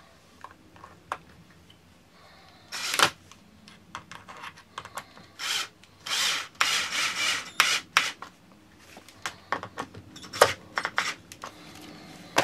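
Screws being driven in to fix a personal alarm down: several short grinding, scraping bursts, the longest lasting about a second and a half, among many small clicks and knocks.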